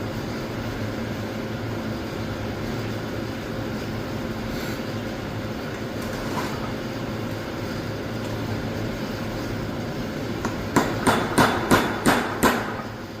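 Steady background hum, then about seven quick hammer blows on metal near the end, coming in under two seconds.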